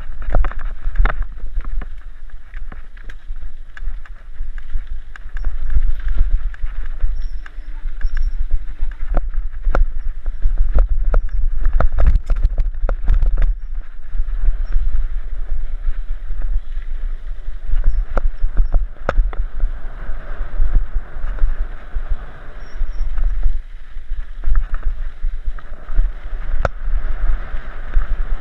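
Mountain bike ridden fast down a dirt trail: tyres rolling over dirt and gravel, the bike rattling with frequent sharp clicks and knocks over bumps and rocks, and wind buffeting the microphone with a constant low rumble.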